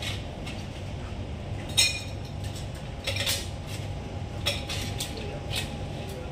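Glassware and bar tools clinking as a drink is mixed: a few short, sharp clinks, the loudest about two seconds in, over a steady low hum.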